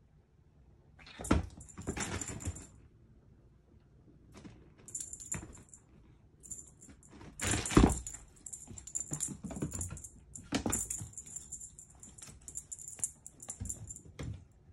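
High jingling and rattling in bursts as a Bengal kitten bats at and tussles with a feather wand toy. Thumps of the kitten landing on the wooden floor come through, the loudest about eight seconds in.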